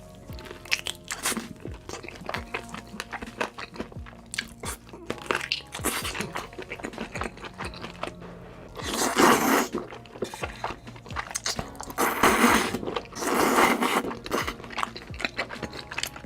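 Close-miked eating: steady small chewing clicks, with three loud crunching bites about nine, twelve and thirteen seconds in.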